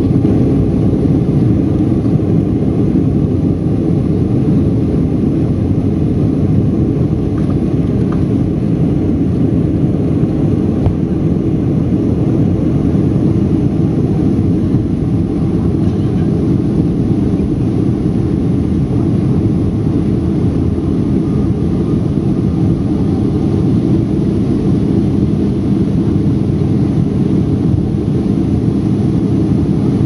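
Jet airliner heard from inside the cabin during the takeoff roll and climb-out: a loud, steady rumble from the engines at takeoff thrust, with a low hum running through it.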